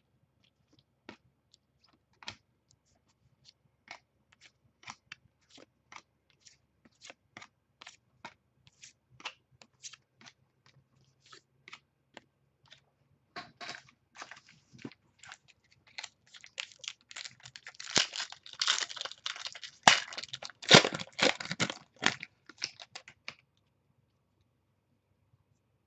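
Trading cards being flipped through by hand, a light click or slap as each card moves, every half-second or so. About halfway in this gives way to a longer stretch of crinkling and tearing, louder towards the end, as a card pack's wrapper is torn open and crumpled; it stops abruptly a couple of seconds before the end.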